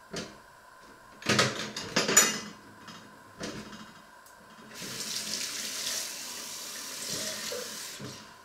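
A few knocks and clinks, then a kitchen tap runs steadily for about three seconds, filling a glass with water, and shuts off near the end.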